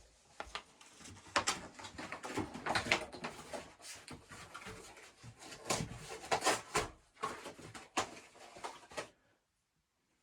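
Irregular knocks, clicks and rustling, stopping about nine seconds in.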